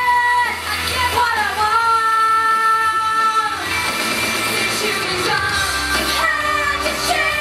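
A woman singing a pop song into a hand-held microphone over amplified pop backing music, holding one long note from about two seconds in to about three and a half seconds.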